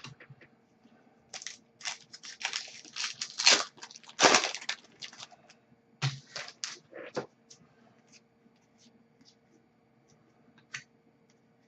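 Crinkly foil wrapper of a hockey card pack being torn open: a run of crackling rips, loudest about three to four and a half seconds in, then a few light clicks and taps as the cards are handled.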